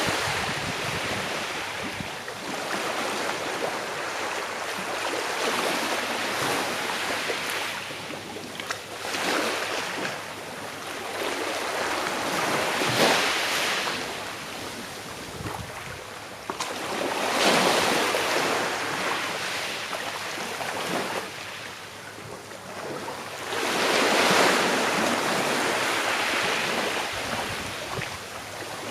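Small sea waves breaking and washing on the shore, each swell rising and falling away every few seconds, with a steady wash of surf between them.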